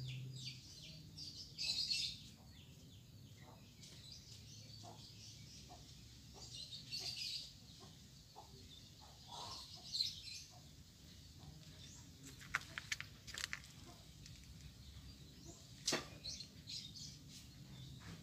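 Small birds chirping in short scattered bursts, with a few sharp clicks later on and one louder click near the end.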